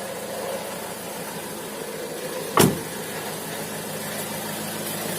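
Opel Vivaro 1.9 diesel engine idling with its accessory belt fitted, with a crackle from the right-hand side of the engine. The crackle stops when the belt is off, so it comes from a belt-driven unit, which the owner traces to the power-steering pump. One sharp click stands out about two and a half seconds in.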